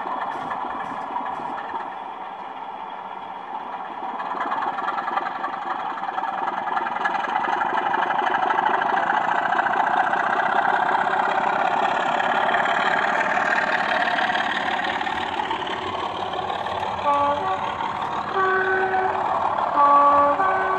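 Model diesel locomotive's DCC sound decoder playing a diesel engine note under power, growing louder as the train passes. Near the end come several short horn blasts on two alternating pitches.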